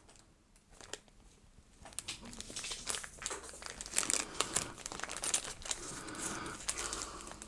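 A small clear plastic bag crinkling as it is handled and opened, starting about two seconds in.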